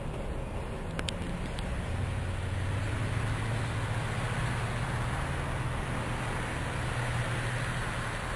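Low, steady drone of a diesel freight locomotive's engine pulling away, mixed with road traffic noise that grows toward the end as a car approaches. There are a couple of light clicks about a second in.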